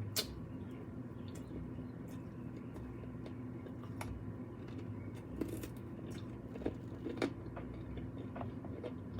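A person chewing a mouthful of jerk ribs, with a few short wet mouth clicks and smacks scattered through.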